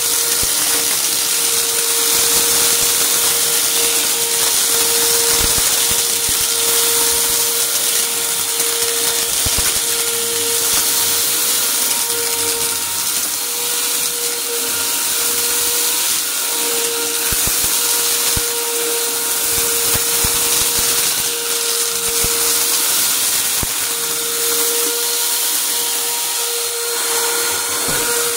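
Upright vacuum cleaner running steadily on carpet: a constant motor whine over a rushing hiss of airflow. Small debris crackles and crunches up through the cleaner head in scattered, irregular clicks as it is pushed back and forth.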